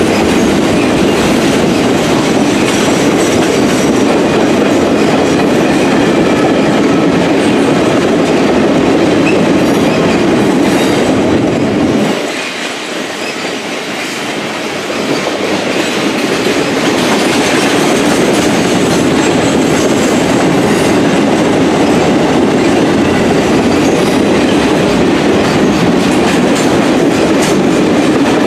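Norfolk Southern RoadRailer freight train rolling past at speed, wheels clattering over the rails with a steady rumble. The noise drops for a few seconds about twelve seconds in, then builds back.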